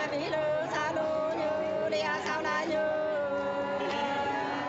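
Unaccompanied Nùng sli folk singing: a high voice line of long held notes joined by gliding, wavering ornaments.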